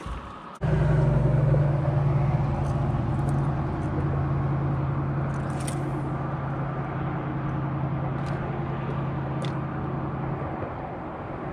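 Electric trolling motor running with a steady, even-pitched hum. It starts abruptly about half a second in and dies away near the end.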